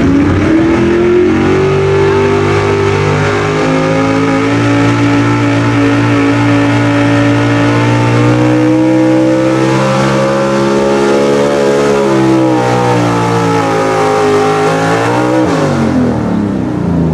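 Pickup truck's engine at full throttle pulling a weight-transfer sled: the revs climb at the start, hold high and steady, then sag slowly and fall away sharply near the end.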